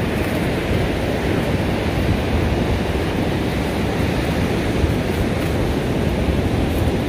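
Steady rush of ocean surf breaking on the beach, with wind buffeting the microphone.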